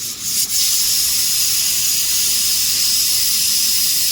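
Pressure cooker venting steam in a loud, steady hiss that starts about half a second in.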